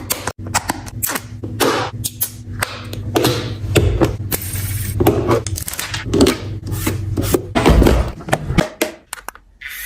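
Household items and containers being handled, set down and slid into place: a quick run of knocks, taps and rubbing scrapes, with a steady low hum underneath that drops away near the end.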